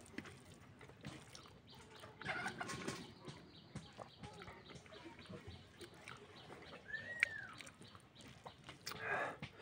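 Quiet eating sounds: a mouthful being chewed and fingers working rice on a steel plate, in a few short spells. A single short bird chirp rises and falls about seven seconds in.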